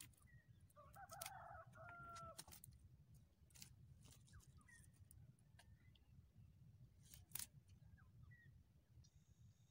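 A rooster crowing once, faint, about a second in, its call ending on a held note. Scattered light clicks and taps are heard around it.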